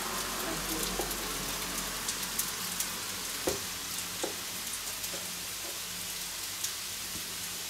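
Potatoes crackling and sizzling steadily as they fry in a pan of clarified butter, with a couple of light knocks a few seconds in.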